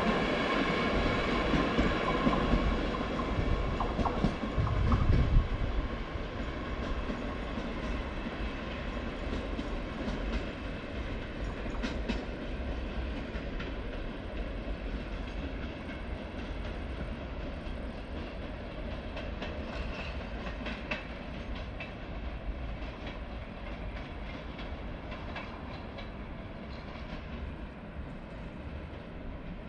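Passenger train pulling away, its rumble and wheel clatter on the rails fading steadily as it recedes, with a few faint clicks from the wheels near the middle and later on.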